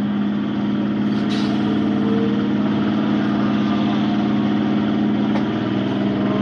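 Suburban commuter train passing close by: a loud steady hum over the rumble of the coaches running past, with a brief hiss about a second and a half in.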